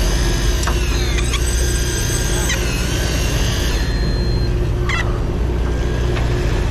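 Electric deep-drop reels winding line up under load, their motors whining in high tones that bend and dip in pitch, over a steady low rumble.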